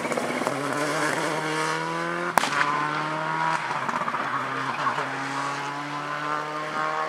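Subaru Impreza WRC rally car's turbocharged flat-four engine accelerating hard, its pitch climbing and dropping back at each gear change, with one sharp bang about two and a half seconds in.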